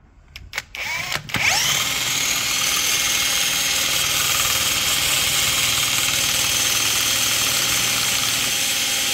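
A cordless drill spins an Audi A6 C4's Bosch alternator by its pulley nut. After a few clicks it whines up to speed about a second and a half in, then runs steadily with a high whine. The alternator is being checked for a scraping bearing noise that is suspected of causing the engine's squeal.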